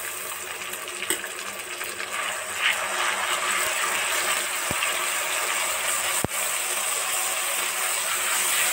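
Sliced onions and ginger-garlic-green-chili paste sizzling in hot oil in a metal karahi. A metal spoon stirs and scrapes the pan from about three seconds in, making the sizzle louder, with a sharp clack of spoon on pan just after six seconds.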